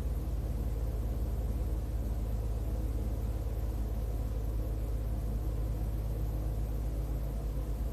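Steady low background rumble with a faint hiss, unchanging throughout, with no distinct sounds on top.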